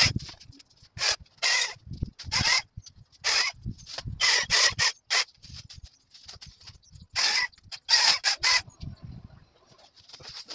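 Hedge branches being cut back by hand: irregular short rasping strokes, some in quick runs of three or four, mixed with the rustle of the cut growth.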